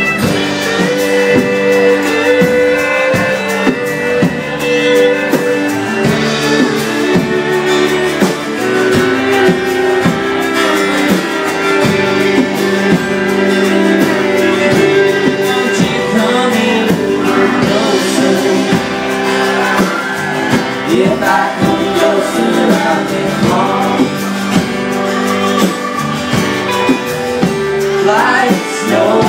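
Live band playing an instrumental break, a fiddle bowed up front over strummed acoustic guitars, with sliding fiddle notes near the end.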